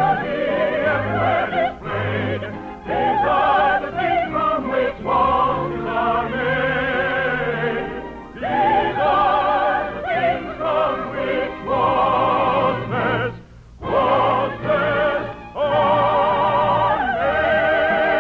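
Operetta singing with strong vibrato over orchestral accompaniment, from a 1950s radio recording with a dull top end. The song breaks off briefly twice.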